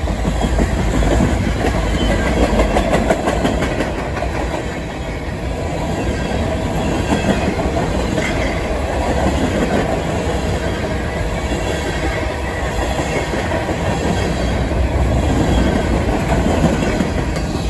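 Freight cars of a long mixed freight train rolling past, their wheels rumbling and clattering over the rail joints.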